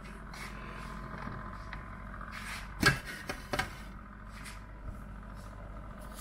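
Excelvan food dehydrator running with a steady hum. About three seconds in there is a sharp plastic knock, followed by a couple of lighter clicks, as its clear lid is lifted off the trays.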